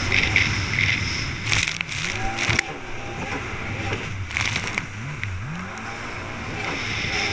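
Stand-up jet ski engine running hard at racing speed, its revs dipping and rising again twice as it rides the chop. Sharp splashes of spray cut in about a second and a half and again about four seconds in.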